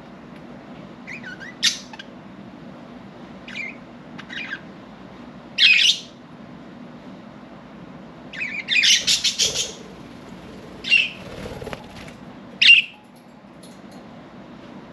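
Pet budgerigars giving short, scattered chirps and squawks, with a longer run of rapid chatter about eight and a half seconds in.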